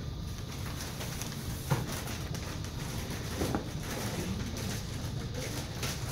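Steady room noise with a single sharp tap just under two seconds in and a brief, softer handling sound about halfway through.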